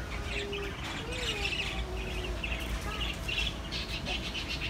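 Parakeets chirping and chattering: many short, quick chirps overlapping one another, over a steady low hum.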